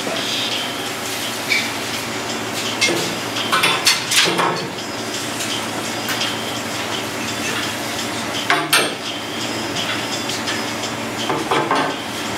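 Kitchen clatter: scattered clinks and knocks of pots and utensils being handled, over a steady background hum. The sharpest knocks come about four seconds in and again past the middle.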